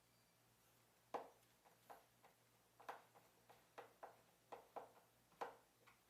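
Faint, irregular clicking, a dozen or so short ticks starting about a second in, from a Pozidriv screwdriver turning the front horizontal-adjustment screw of a Blum Compact 38/39 face frame cabinet hinge.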